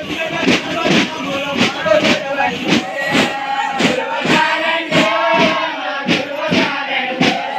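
Thappeta gullu frame drums beaten together in a steady rhythm, just over two strokes a second, with a group of men chanting over the beat.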